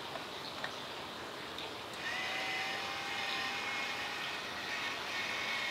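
A D-cell battery-powered rotisserie spit motor switching on about two seconds in and running with a steady whine of several pitches, over a steady background hiss.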